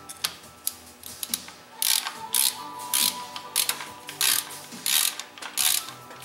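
Hand ratchet wrench clicking in repeated strokes, about two a second, starting about two seconds in after a few lighter clicks. The ratchet is running bolts down on a motorcycle engine's cylinder head.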